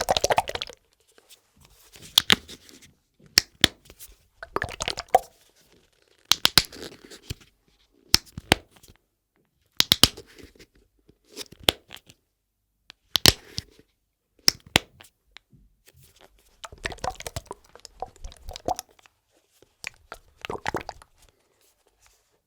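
A gel container being moved about, its cap opened and closed: short bursts of clicks, snaps and rustling every second or two, with silence between.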